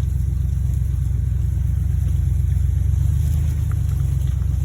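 Motor vehicle engine running steadily, a low even rumble.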